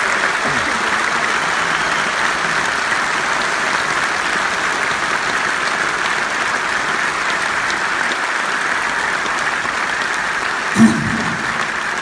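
Large arena crowd applauding steadily, a dense even clatter of many hands. Near the end there is a brief, louder burst close to the microphone.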